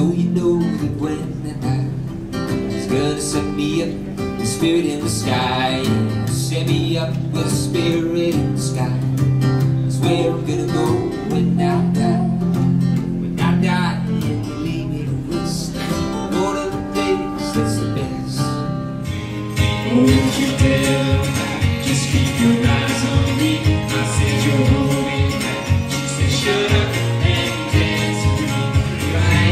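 Live acoustic music: strummed acoustic guitar and keyboard with a singer. About 19 seconds in, it changes to a fuller, more rhythmic live band song with a steady beat.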